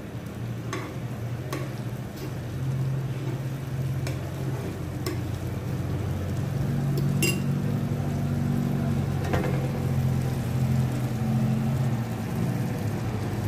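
Thick gravy simmering and bubbling in a nonstick frying pan while a metal spoon stirs it, with a few sharp clicks of the spoon against the pan. A steady low hum runs underneath, and the sound grows a little louder as the gravy comes to a vigorous boil near the end.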